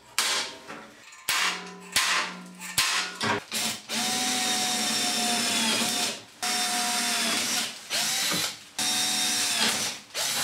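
A few sharp metallic clicks, then a cordless drill boring through the rusted steel back plate of an oven. The drill runs with a steady whine from about four seconds in, stopping and restarting several times.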